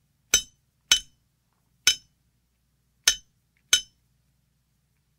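Five sharp metallic clinks at uneven intervals, each with a brief high ringing.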